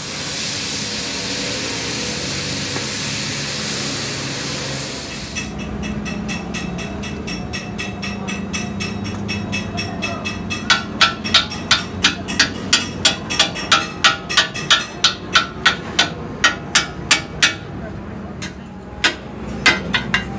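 A gas cutting torch hisses steadily as it cuts into a steel truck axle housing, then stops about five seconds in. Later, rhythmic hammer blows on metal come at a little over two a second, with a pause and a few more strikes near the end.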